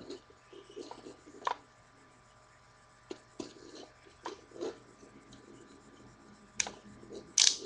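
Plastic parts of a Transformers action figure clicking and rattling as hands move and transform it, with two sharper clacks near the end.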